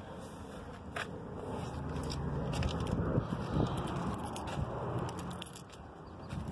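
Handling noise from a phone being carried about while filming: rustling and scraping with scattered sharp clicks over a low rumble.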